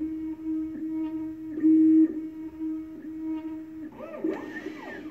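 Computerized key cutting machine whining steadily as its motors drive the probe tracing a laser-cut Honda key to decode its cuts. The tone dips briefly about once a second and swells louder about two seconds in. Near the end it sweeps up and down in pitch as the carriage moves.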